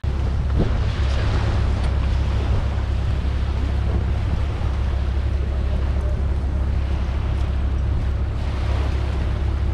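Steady low rumble of wind on the microphone, mixed with small waves washing on the shore.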